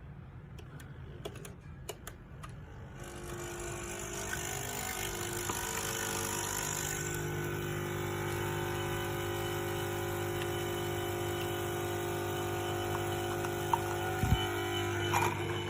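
A few light clicks, then about three seconds in the Nespresso Essenza Mini's pump starts up and runs with a steady buzzing hum as it brews a capsule, with a couple of small clicks near the end.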